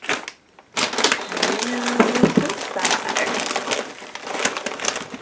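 Groceries being rummaged through in a cloth tote bag: the packaging rustles and crinkles, with a crackly plastic snack bag among it, and small knocks as items shift.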